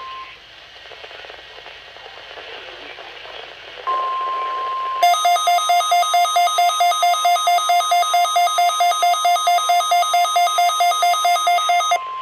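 Faint radio hiss. About four seconds in, the NOAA Weather Radio 1050 Hz warning alarm tone starts: a steady, piercing beep. About a second later a weather radio receiver's alert alarm joins it, beeping rapidly at about four beeps a second. The alarm stops near the end while the steady tone continues.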